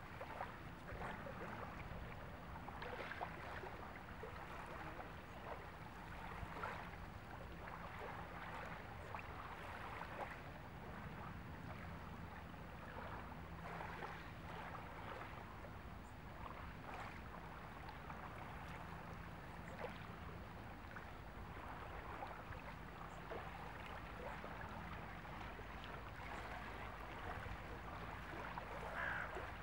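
Calm sea water lapping and trickling gently at the shore in small irregular splashes, over a low steady hum.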